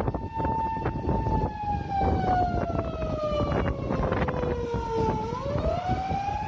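Siren wailing: it holds a steady pitch, slides slowly down over about four seconds, then winds back up near the end. Underneath are a rough low rumble and scattered knocks.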